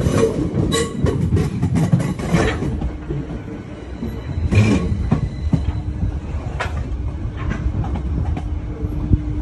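Class 455 electric multiple unit running slowly over pointwork, with a low rumble of wheels on rail. A quick run of clacks and knocks in the first couple of seconds as the wheels cross the joints and crossings, one sharper knock just under five seconds in, and a steady tone that comes in about halfway through.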